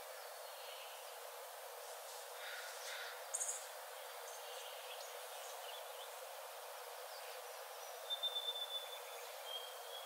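Birds calling over a steady forest hiss: a brief, very high chirp about three seconds in, then a high, thin held note that pulses several times about eight seconds in, and a shorter high note near the end.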